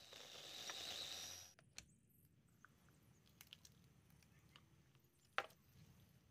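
A food processor runs briefly and stops abruptly after about a second and a half. Faint clicks and one sharp tap follow near the end.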